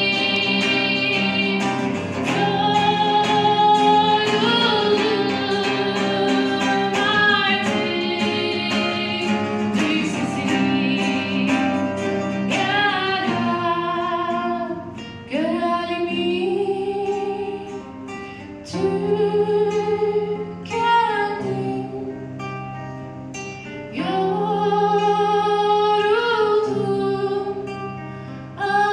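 A woman singing a slow song in phrases with short breaks, accompanied by two acoustic guitars: a nylon-string classical guitar and a black cutaway acoustic guitar.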